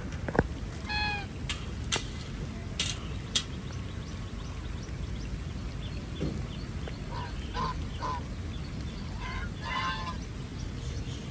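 Ducks quacking: one call about a second in, then a run of quacks near the end. Rain hisses steadily, and a few sharp taps come in the first few seconds.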